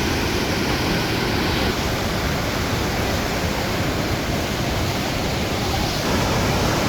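Fast, powerful river water rushing and churning through a narrow channel under a natural rock bridge, a loud, steady rush with no let-up.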